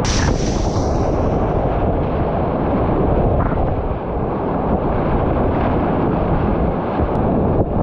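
Steady roar of big whitewater rapids heard from a kayak running right through them, with a sharp splash at the very start.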